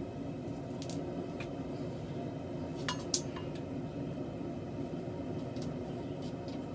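A forge running with a steady low drone, and a few light metallic clinks of steel and tools being handled, once about a second in and twice close together around three seconds in.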